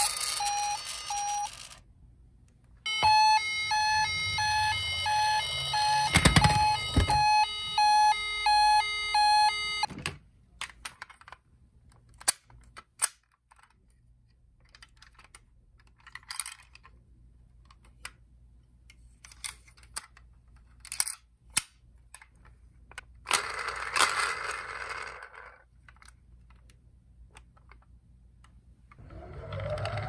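Die-cast toy ambulance's electronic siren: a repeating pattern of short beeping tones that cuts off about ten seconds in. Then quiet clicks and rustling as the toy is handled.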